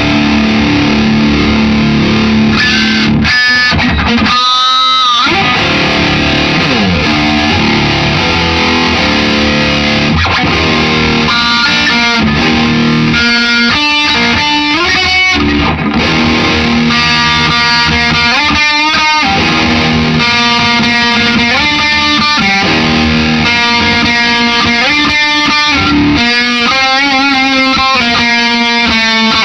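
Electric guitar, a Gibson Les Paul, played with distortion through an amp head and speaker cabinet, now linked by proper speaker cables instead of patch cables. A steady stream of sustained lead notes and riffs, with string bends and wide vibrato on held notes several times.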